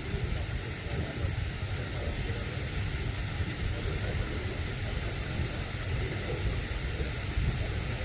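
Steady rushing of a waterfall into its pool: a continuous low rumble under an even hiss, with no breaks or separate events.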